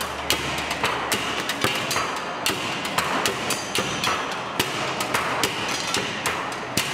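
Stomp-style percussion beaten on car parts: sticks and plastic containers striking metal exhaust pipes and mufflers. It is a fast, dense rhythm of sharp knocks and clanks.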